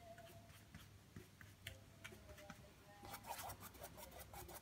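Faint scratching of a paintbrush stroked over wet acrylic paint on a stretched canvas. Near silence at first, then quick short back-and-forth brush strokes begin about three seconds in.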